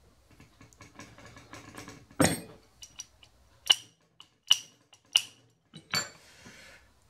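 Hex key and small steel parts clinking against the steel slotter body and the metal workbench during hand assembly: soft handling noise, a clatter about two seconds in, then four sharp, ringing metal clinks about a second apart.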